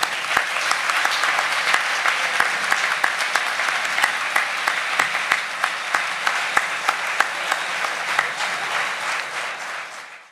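Audience applauding: a dense, steady patter of many hands clapping that eases slightly near the end.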